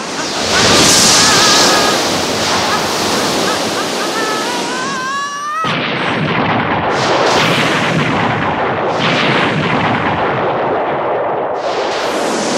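Cartoon sound effects of a rocket-propelled flight: a loud rushing noise of jet thrust with a wavering, rising high cry, then a sudden break about five and a half seconds in and an explosion followed by the noise of burning.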